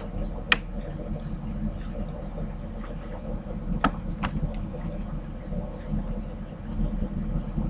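Steady low background hum with four short clicks, two near the start and two about four seconds in.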